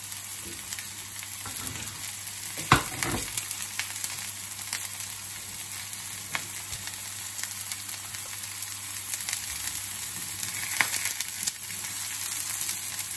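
Artichokes sizzling flower-side down in a drop of oil in a very hot nonstick frying pan: a steady hiss with small crackles. A single sharp knock a little under three seconds in.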